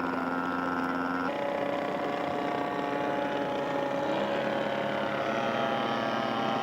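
Quadra 100 two-stroke gas engine of a large-scale radio-control model airplane running in flight. The engine note changes abruptly about a second in, then drifts slowly.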